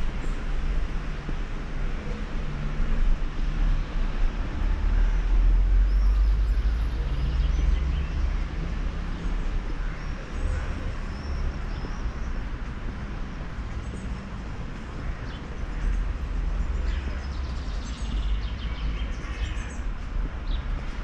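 Outdoor ambience: a steady low rumble, with birds chirping now and then, more often near the end.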